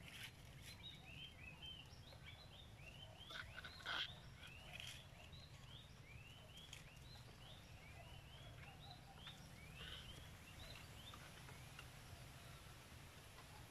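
Faint chirping of small wild animals in dense brush: many short high chirps, several a second, with a sharp snap about four seconds in.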